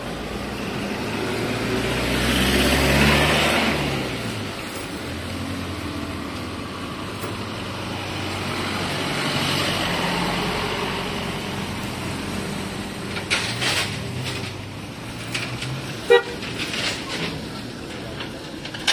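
Vehicles passing close by on a wet road, one after another: engine tone and tyre hiss swell and fade about three seconds in and again about ten seconds in. A few sharp knocks and a short blip follow near the end.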